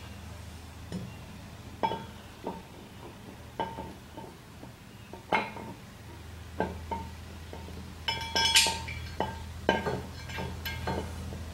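Metal clinking and knocking as an aluminum adapter plate is handled and fitted against an electric motor's faceplate: about a dozen sharp, irregular clinks, some ringing briefly, with a cluster of them a little after the middle. A steady low hum runs underneath.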